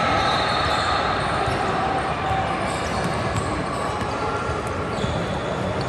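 Basketball dribbled on a hardwood gym court, the bounces mixed into the steady din of a large echoing sports hall.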